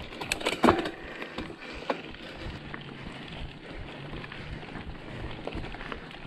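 Mountain bike rolling over a gravel dirt road: tyres on loose stones and the bike rattling over bumps, with a burst of loud clattering knocks about half a second in and a few single knocks later.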